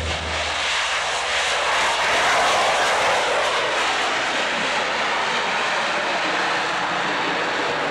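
Blue Angels F/A-18 Hornet jets flying past: a steady rushing engine noise that swells to its loudest about two to three seconds in, then holds.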